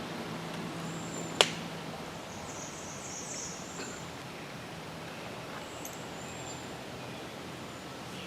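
Outdoor ambience: a low engine hum, like a vehicle off in the distance, fades out about two seconds in and returns faintly later. Short high chirps come and go, and a single sharp click sounds about a second and a half in.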